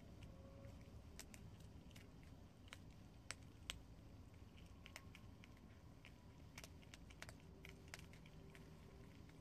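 Two prairie dogs nibbling dry, uncooked ramen noodles: faint, irregular crunchy clicks of small teeth on brittle noodles, a couple of sharper ones a little past three seconds in.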